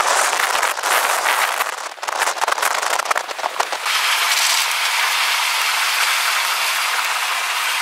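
Crackling wind buffeting the microphone, then, from about four seconds in, a steady rush of wind and road noise through an open vehicle window.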